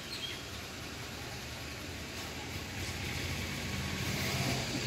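Steady low rumble of vehicle engines, with a low hum that grows slightly louder in the second half.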